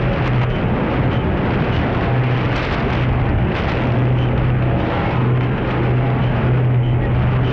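Shortwave receiver audio of a North Korean noise jammer on 4450 kHz: loud, dense rushing noise with a low steady hum that breaks off briefly now and then. It is deliberate jamming noise, sent to drown out a South Korean clandestine broadcast.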